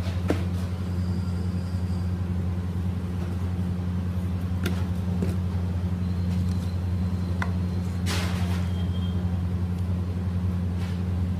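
Steady low machine hum, even and unchanging, with a few light clicks and a brief rustle about eight seconds in.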